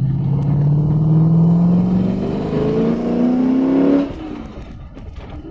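LS1 V8 on an individual-throttle-body intake, accelerating in gear, heard from inside the car's cabin. The engine note climbs steadily for about four seconds, then falls away suddenly.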